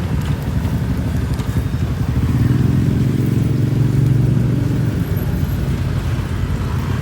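A road vehicle's engine passing close by, swelling to a louder steady hum for a couple of seconds around the middle and then fading, over a continuous traffic rumble.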